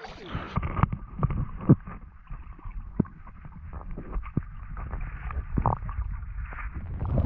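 Muffled water sloshing and gurgling heard underwater as a snorkeller dives in a river, with scattered dull knocks and clicks, growing louder near the end.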